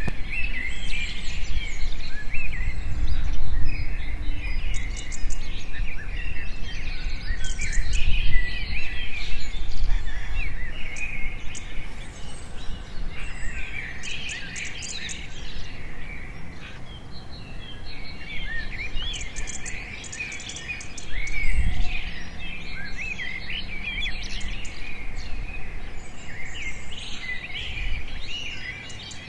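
Many wild birds chirping and singing in quick, overlapping calls, over a low rumble that is loudest in the first half and swells briefly about two-thirds of the way through.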